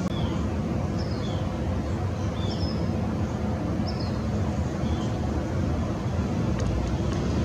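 A few short, high bird chirps, spread over the first five seconds, above a steady low rumble.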